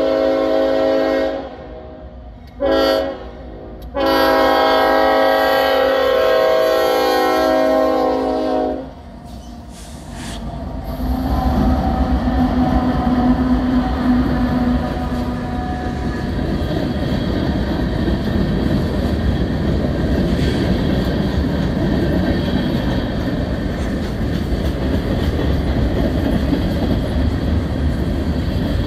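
Norfolk Southern freight locomotive's air horn finishing the grade-crossing signal: the end of a long blast, a short blast, then a long blast of about five seconds. From about eleven seconds in, the three diesel locomotives pass close by, followed by a long string of boxcars rolling steadily over the rails.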